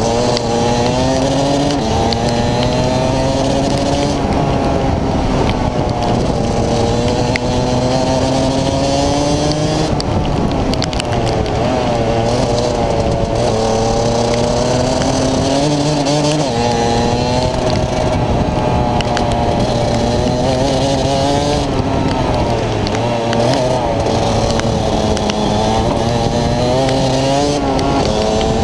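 Rotax DD2 125 cc two-stroke kart engine heard onboard, its pitch climbing on each straight and falling as the kart slows for corners, over and over.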